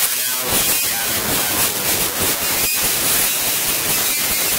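Loud steady rushing noise of a factory floor, an even hiss with no distinct strokes or tones.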